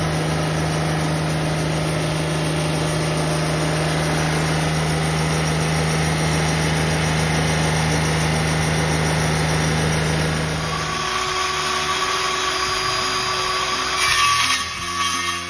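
Wood-Mizer portable band sawmill running steadily, its engine and band blade cutting through a log. The steady hum changes about two-thirds of the way in, and a circular saw cuts briefly near the end.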